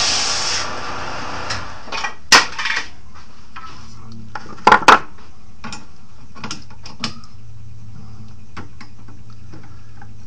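Sharp metallic clinks and knocks as lathe chuck parts and a spacer are handled and set in place, the loudest two close together about five seconds in, over a low steady hum. A short burst of rubbing noise ends in the first second.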